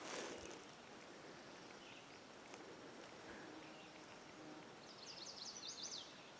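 Quiet woodland ambience; about five seconds in, a bird sings a short, rapid run of high notes.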